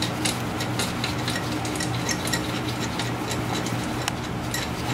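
Hand tools working an alternator mounting bolt, giving short, light metallic clicks a few times a second over a steady low hum.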